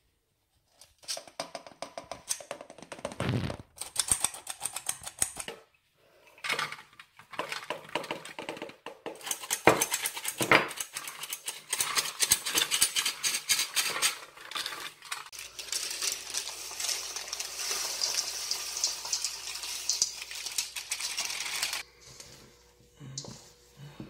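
Kitchen baking sounds: a hand-crank flour sifter clicking rapidly over a stainless steel mixing bowl, walnuts and chocolate chips being stirred by hand, and a spatula scraping and folding cookie dough in the bowl. There is a long stretch of steady scraping in the second half.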